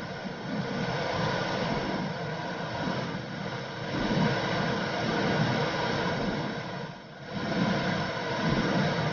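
Womb sound for soothing a baby: a steady whooshing noise with uneven low swells, dipping briefly about seven seconds in.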